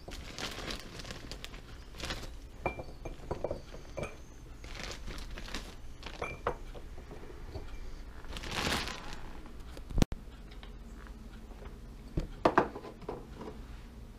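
Plastic bag of frozen tater tots crinkling while the frozen tots drop and clink into small glass mason jars, in scattered light clicks and rustles, with a few sharper clicks near the end.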